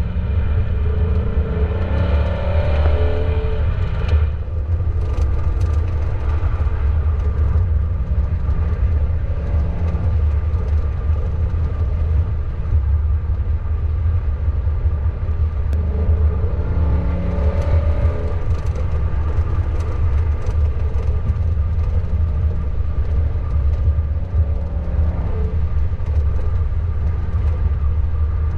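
2024 Ford Mustang Dark Horse driving at speed with the windows down, heard from the cabin: steady wind buffeting and road rumble, with the seatbelts flapping in the wind and slapping in clusters of sharp taps. The car's 5.0 L V8 note rises twice, with the taps coming just after each rise.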